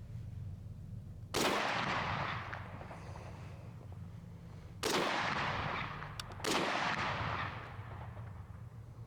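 Chinese SKS semi-automatic rifle (7.62×39 mm) fired three times, about three and a half seconds and then a second and a half apart, each shot trailing off in an echo that lasts about a second.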